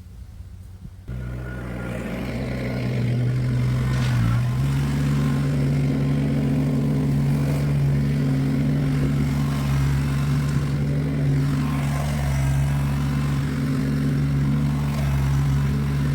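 Engine running steadily; it comes in suddenly about a second in and steps up in pitch about four and a half seconds in as it is throttled up, then holds there.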